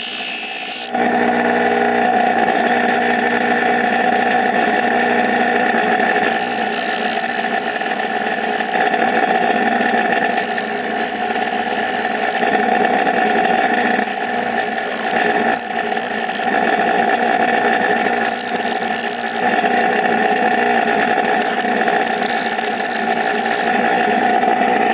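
A motor-driven grinder running steadily while a steel cotter pin is ground flat against it, coming in strongly about a second in, with brief dips in level now and then as the pin is pressed on.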